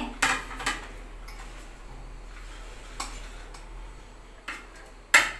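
A metal serving spoon clinking and scraping against a steel pot while rice is scooped out: a few sharp separate clicks, the loudest near the end.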